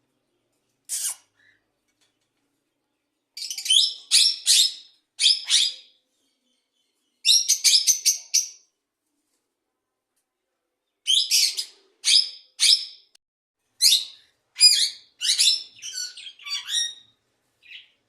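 Small birds chirping in quick bursts of high chirps, with pauses of a second or two between the bursts.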